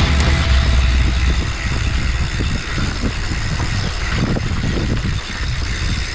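Wind buffeting a handlebar camera's microphone and mountain bike tyres rolling fast over a dirt trail, with irregular small knocks and rattles from the bike over bumps. The low wind rumble is heaviest for the first second and a half, then eases.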